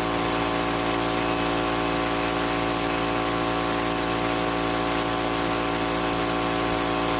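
Oil-lubricated air compressor running steadily under continuous duty, a constant motor-and-pump hum with even tones over a hiss; its crankcase holds fresh oil with Energy Release additive, and it is running strong.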